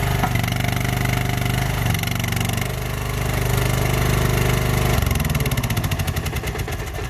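Chinese skid steer's engine running steadily under the load of a trencher attachment, then slowing and laboring from about five seconds in until it dies near the end: the trencher has stalled the engine, which the operator puts down to the chain hitting roots in red clay with the throttle set low.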